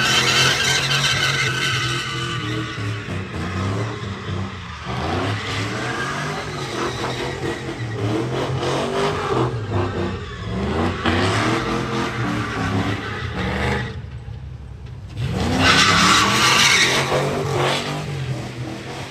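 Chevy Silverado pickup doing donuts: the engine revs hard and unsteadily while the rear tyres spin and squeal on the pavement. About 14 seconds in it lets off for a second, then revs back up with a rising sweep into another loud burst of tyre squeal.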